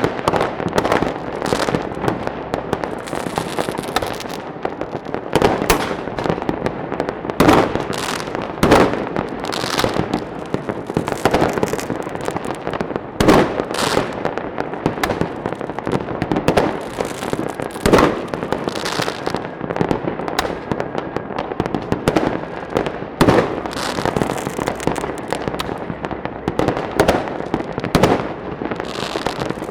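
Fireworks going off continuously: a constant crackle with many sharp bangs and pops, several a second, some louder than others.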